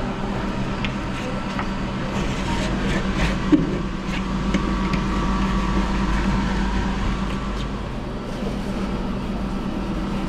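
Steady low machine hum of running kitchen refrigeration or fan equipment, with faint scraping ticks of a hand scraper working along a refrigerator door's gasket channel.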